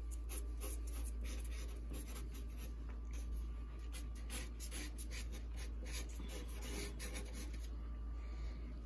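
Sharpie marker drawing on paper: many short, irregular scratchy strokes one after another, over a steady low hum.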